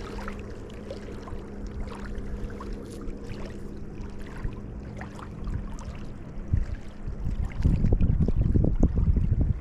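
Steady low hum with scattered light clicks. About eight seconds in, a loud low rumble takes over.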